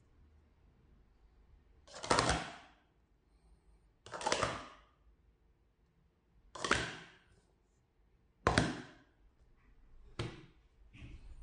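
Plastic sport-stacking cups being downstacked: four short clattering rushes, about two seconds apart, as cups slide down into each other. A lighter clack follows about ten seconds in as the stacks are finished.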